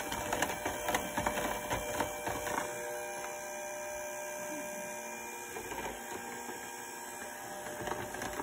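Electric hand mixer running steadily, its beaters whipping a milk, condensed milk and cream ice cream base in a plastic tub to the thickness of heavy cream. Irregular clicks and knocks sound over the first two or three seconds, then only the steady motor hum.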